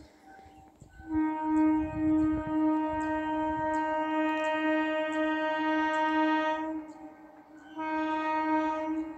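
Horn of an approaching electric local train sounding one steady note in two blasts: a long one of about six seconds, then a short one of about a second near the end.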